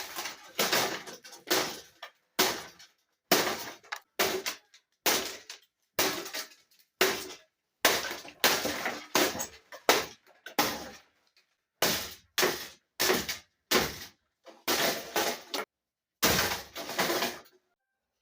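Aerospeed box fan being struck over and over, most likely with a bat, its plastic housing and parts cracking and breaking. There are about twenty hard blows, roughly one a second, each with a short crashing clatter, and they stop just before the end.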